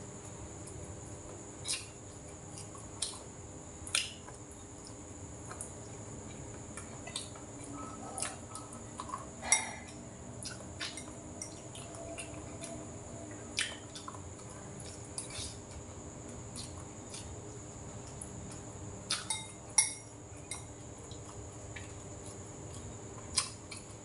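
Chopsticks and a spoon clinking now and then against a rice bowl and dishes during a meal, a dozen or so sharp light taps at uneven intervals, over a steady faint high hiss.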